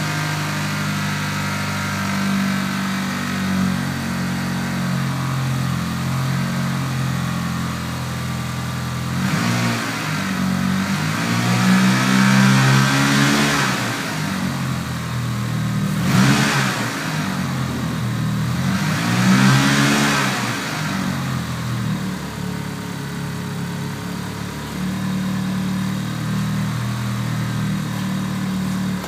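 1995 Mitsubishi Eclipse GSX's turbocharged 2.0-litre four-cylinder idling through a full 3-inch exhaust with a Magnaflow muffler, blipped up in revs three times and falling back to idle. The engine has a knock or tick that the previous owner takes for a spun rod bearing, while the owner suspects it may instead be a bent valve up top.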